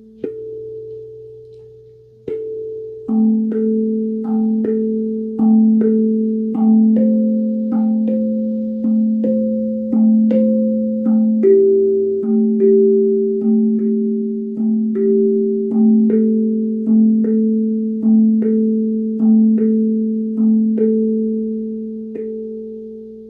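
Guda steel tongue drum played slowly, one struck note at a time. The notes come about one a second after a sparse start, each ringing on so that neighbouring notes blend into a low sustained chord.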